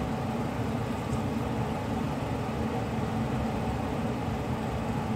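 Steady low hum and hiss of background room noise, with no distinct events.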